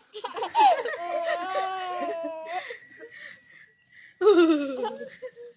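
A baby laughing in long, high-pitched vocal sounds, then a pause and a short falling vocal sound about four seconds in.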